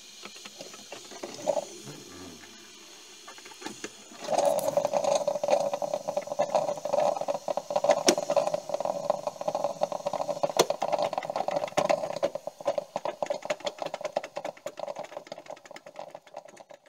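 A small machine starts up about four seconds in and runs with a fast, even rattle, fading away near the end.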